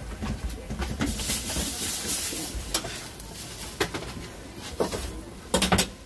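Hands patting and folding oiled msemen dough on a stainless-steel counter: soft slaps and scattered taps and knocks on the metal, with a short low pitched sound amid a cluster of knocks near the end.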